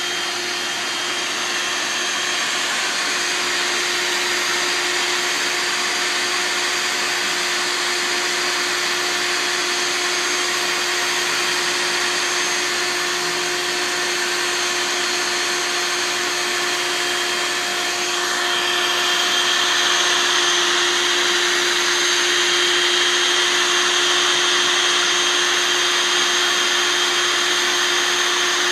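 Bee vacuum motor running steadily, a continuous whirring hiss with a steady hum under it; it gets a little louder and brighter about 18 seconds in.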